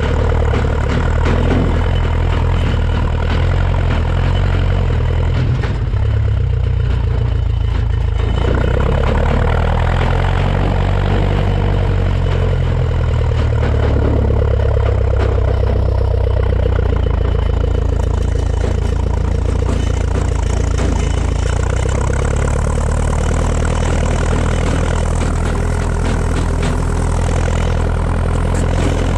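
The 1950 Ferguson TED20 tractor's four-cylinder engine, running on petrol, runs steadily at an even speed as the tractor drives along.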